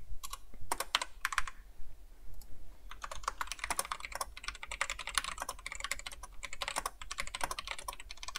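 Typing on a computer keyboard: a few scattered keystrokes, then a quick, steady run of keystrokes from about three seconds in.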